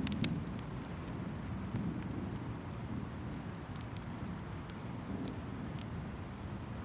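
Rain and a crackling wood fire: a steady rushing patter of rain, with a few sharp pops from the fire scattered through it.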